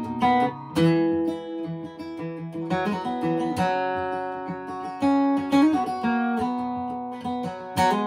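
Acoustic guitar strummed and picked in an instrumental passage between sung lines, with chords struck about once a second and left to ring.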